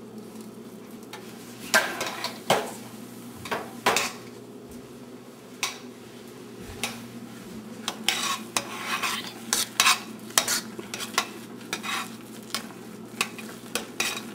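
A spoon stirring instant mashed potato flakes into a pot of hot milk, water and butter, clinking and scraping against the pot in irregular strokes that come more often in the second half, over a steady low hum.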